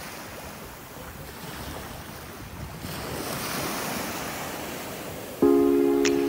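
Sea surf washing onto a sandy beach, with wind on the microphone. Near the end, music with sustained chords starts.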